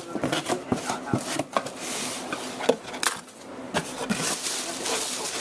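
A cardboard box being opened and handled: irregular taps, knocks and scrapes with the rustle of packaging.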